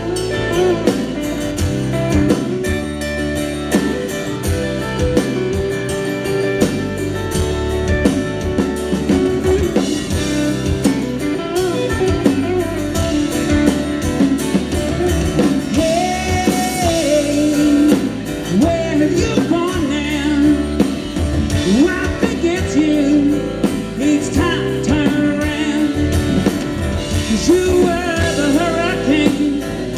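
Live band playing a rock song: electric and acoustic guitars, bass and a drum kit, with a singing voice over them.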